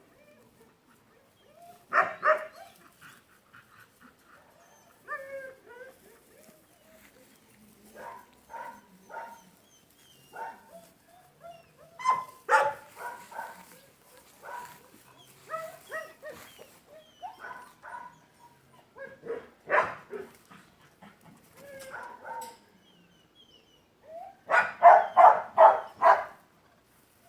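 Dog barking, whining and yipping on and off, with single sharp barks now and then and a quick run of about six loud barks near the end, typical of a dog excited by cats during a cat test.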